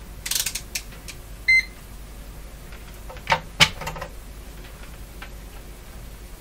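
Handheld digital multimeter being handled and switched on, giving one short high beep about a second and a half in, then two sharp knocks as it is set down on the wooden bench a little after three seconds in, the second knock the loudest.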